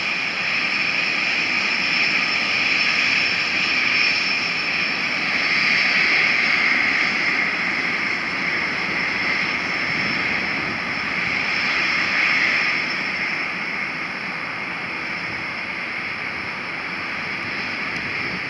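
Cessna 510 Citation Mustang's twin Pratt & Whitney PW615F turbofans running at taxi power as the jet rolls away: a steady jet whine over a hiss, easing off somewhat near the end.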